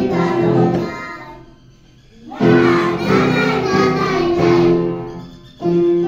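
Music with a singing voice over sustained instrumental notes. It fades down about a second in and comes back strongly about two and a half seconds in.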